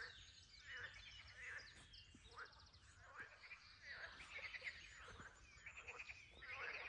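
Faint chorus of frogs croaking, many overlapping calls in rapid pulsed trains, with birds calling among them.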